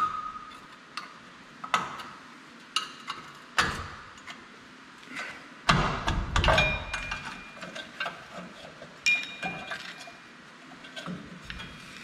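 Scattered metal clicks and clinks, a few with a short ring, from the rusty parking-brake shoe hold-down clips, springs and shoes of a 2003 Ford F-150 rear brake being worked off the backing plate with a hand tool. A heavier knock comes about six seconds in.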